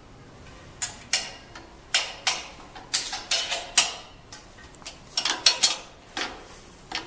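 Irregular metal clicks and clanks from a rotary screen printing press's print-head arm and clamps as they are handled and adjusted by hand: about a dozen sharp knocks, some in quick clusters, starting about a second in.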